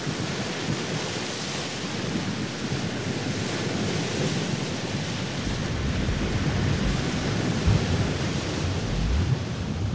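Ocean surf and wind in a steady wash of noise, with wind buffeting the microphone in low rumbles from about halfway through.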